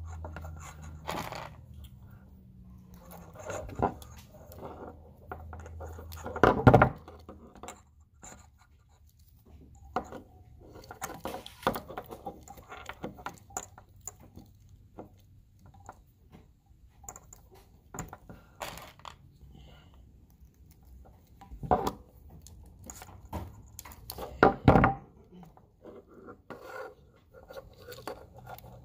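Hands working a bundle of car-stereo harness wires close to the microphone: rustling, scraping and small clicks as wire ends are pinched and twisted, with a few louder knocks, about 7 seconds in and twice more near the end.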